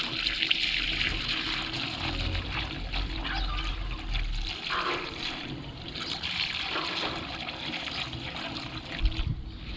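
Liquid pouring steadily from a plastic jug through a funnel into a filler opening on a UTB Universal 650 tractor, trickling and gurgling.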